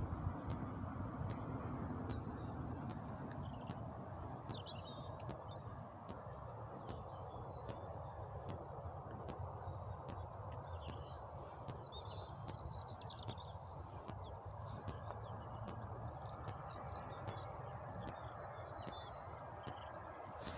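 Small birds chirping and trilling in short repeated phrases over a steady low background rumble.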